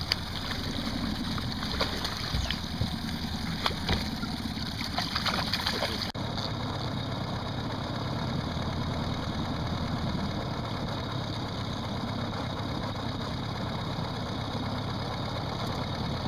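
Boat motor running steadily at slow trolling speed. In the first six seconds a hooked lake trout splashes at the surface beside the boat, with a few sharp knocks. After an abrupt break about six seconds in, only the motor goes on.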